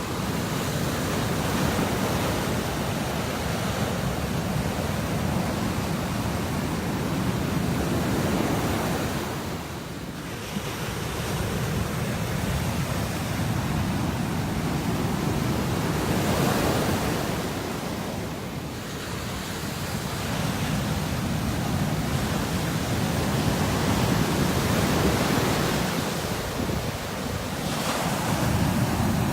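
Atlantic surf breaking on the beach, swelling and easing with a lull about every eight seconds, with wind on the microphone.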